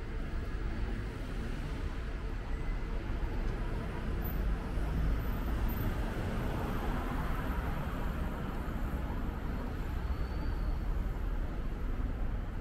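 City street ambience: a steady din of road traffic, swelling a little in the middle.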